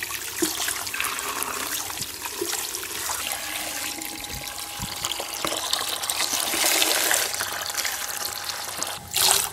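Water from a garden hose pouring into a plastic bucket, splashing and bubbling steadily as the bucket fills.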